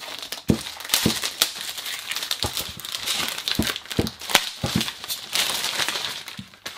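Clear plastic bag crinkling and crackling as it is pulled open and instruction booklets are drawn out of it.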